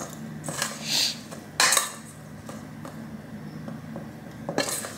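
Metal spoon scraping and clinking against a stainless steel mixing bowl as sliced bell peppers and onions are tossed in seasoning. It comes in a few separate strokes, the loudest about a second and a half in and another near the end.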